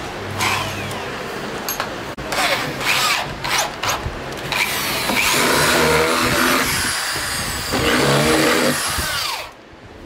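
Electric drill driving screws into a washing machine's moulded plastic base, the motor running in two spells of a few seconds each in the second half. Before it come knocks and clatter of the plastic base being handled.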